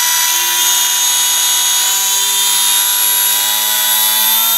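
Electric motor and propeller of an E-flite UMX PT-17 Stearman ultra-micro RC biplane running on the bench during a throttle test, a steady whine whose pitch slowly rises as the throttle is eased up.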